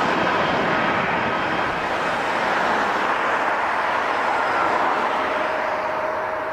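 Jet airliner engine noise: a steady rush that slowly fades, with a faint whine that comes in about five seconds in.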